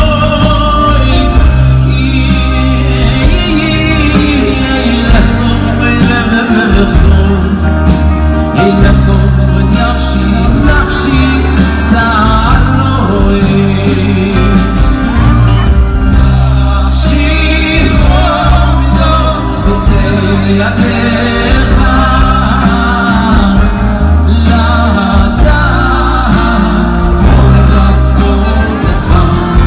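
Two men singing a Hebrew hymn live on stage, in turn and then together, over a band's accompaniment with a steady bass.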